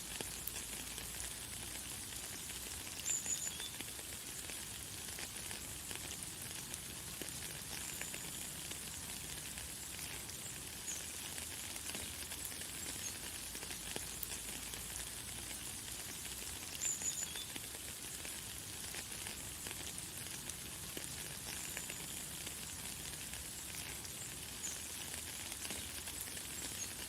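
Light, fine rain falling steadily as an even hiss, with short high bird chirps every few seconds; the loudest chirps come a few seconds in and again past the middle.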